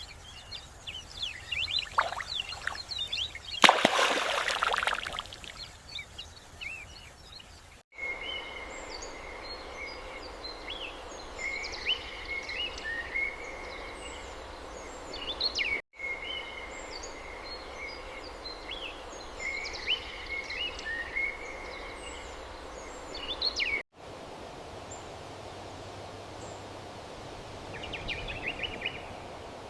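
Small birds chirping and trilling again and again over a steady outdoor hiss. About four seconds in, a loud rushing noise lasts a second or two. The sound cuts out for an instant three times, at the joins between spliced clips.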